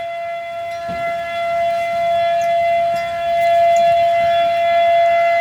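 Outdoor tornado warning siren sounding, holding one steady pitch that slowly swells louder and then eases a little near the end.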